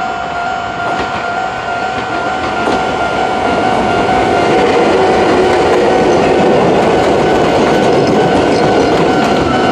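Level crossing alarm sounding its old standard electronic warning tone, with the crossing's two alarm units ringing out of step with each other. A train runs through the crossing, its rumble and wheel clatter growing from about three seconds in and staying loud.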